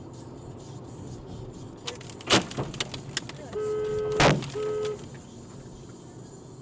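Road noise inside a moving car, broken by a sharp crack about two seconds in, then several lighter clicks, as chunks of snow and ice thrown off the lorry ahead strike the car. About four seconds in, a louder bang, with the car's horn sounding in two short blasts either side of it.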